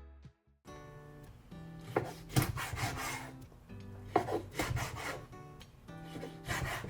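Repeated rasping, scraping strokes in three short bouts, over background music with steady tones.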